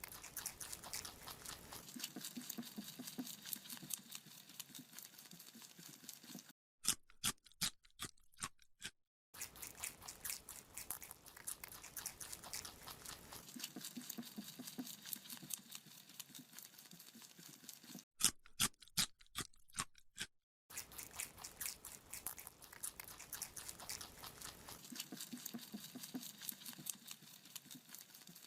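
Rabbit chewing a carrot: fast, crisp crunching clicks, twice giving way to a few louder, separate crunches with silence between.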